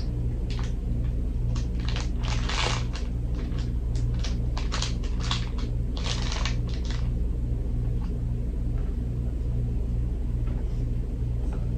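A slime-coated plastic wrapper crinkling and rustling in the hands as it is peeled apart, in short irregular bursts over the first seven seconds or so and then mostly stopping. A steady low hum runs underneath throughout.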